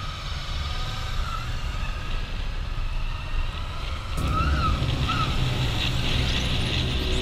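Motorcycle engines running with wind noise on a helmet-mounted camera. The rumble and wind get louder about four seconds in as the group pulls away onto the highway.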